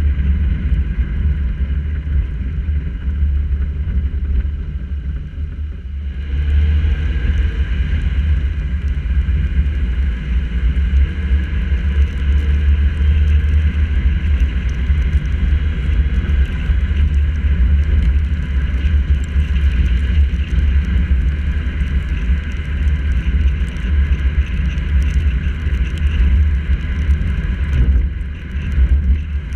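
Steady low rumble of wind and road noise from a camera mounted on the hood of a moving car, with tyre hiss on wet pavement. The noise dips briefly about five seconds in and again near the end.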